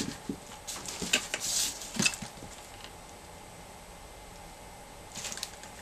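Seashells clicking and clinking against one another as they are handled and pressed onto a glued canvas edge: a few light taps and a brief rattle in the first two seconds, a sharp click about two seconds in, and a soft clatter near the end.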